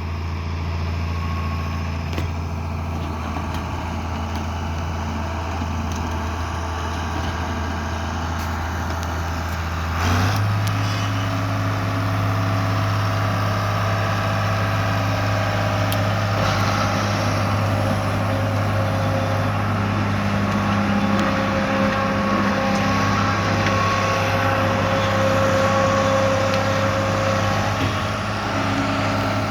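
John Deere 690B excavator's diesel engine running steadily, then stepping up to a higher speed about ten seconds in. Higher whining tones come and go over the engine later on.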